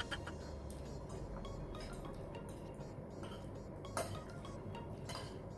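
Metal forks and spoons clinking and scraping on ceramic plates and bowls during a meal, with a few short clinks, the sharpest about four seconds in.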